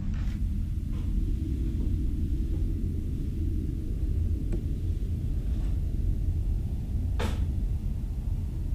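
A steady low rumble, with a few faint clicks and one brief, sharper noise about seven seconds in.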